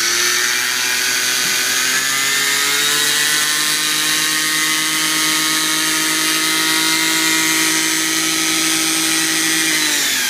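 Brushless motor and drivetrain of a Traxxas Slash 4x4 RC truck with a Castle Mamba Monster system, run under power: a loud, steady whine of several tones that climbs slightly in the first couple of seconds, holds, then falls away as the throttle is released near the end. It is a throttle test of 3D-printed rims.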